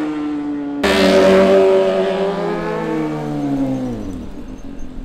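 Sport motorcycle engine at high revs going by close. It cuts in loudly about a second in, then its pitch falls steadily as it passes and fades away.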